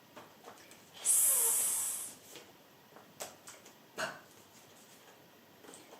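A woman's voice making a long hissed "sss" sound, held for about a second, as a phonics letter sound. A few faint clicks and a short breath follow.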